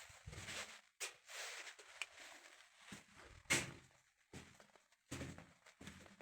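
Ghost-box device (the 'Vox') scanning, giving short choppy fragments of static and muffled sound that cut in and out with near-silent gaps between them, with a sharper, louder fragment about three and a half seconds in.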